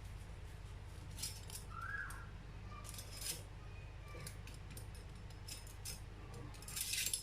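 Faint light clinks and rustles of kitchen things being handled, a few scattered knocks with the clearest about three seconds in and near the end, over a low steady hum.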